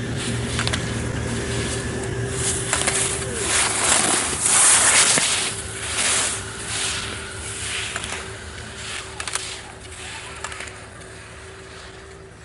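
Slalom skis carving and scraping on hard snow as a racer runs the gates close by, swelling to its loudest about four to five seconds in and then fading, with short knocks of the racer striking the slalom poles in the first few seconds. A steady engine hum runs underneath.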